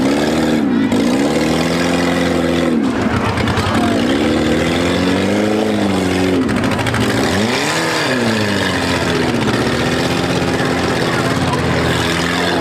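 Small-car demolition derby engines revving hard, their pitch repeatedly climbing and falling back as the cars drive and push, over a steady noisy din.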